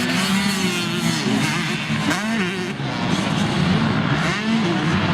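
Several motocross dirt bike engines racing, their pitches rising and falling as the riders rev up and back off.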